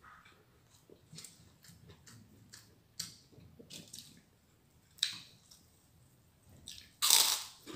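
Close-up eating sounds of a person chewing a meal of rice and pepes fish: wet chewing and lip smacks with scattered small clicks, and a louder, noisier burst about seven seconds in.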